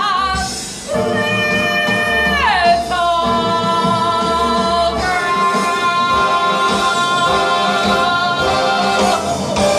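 A woman belting a long, high held note in a musical-theatre song. The note swoops down in pitch about two and a half seconds in and then settles into further long held notes.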